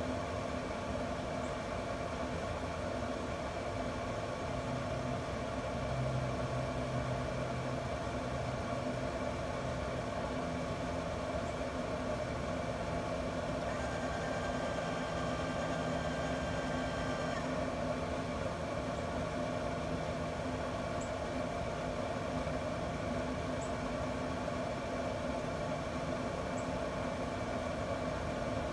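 Camp Chef pellet grill running under a Savannah Stoker controller: a steady fan hum throughout, with the pellet auger motor switching on about fourteen seconds in and running for about three and a half seconds as it feeds pellets to hold the 225 °F set point.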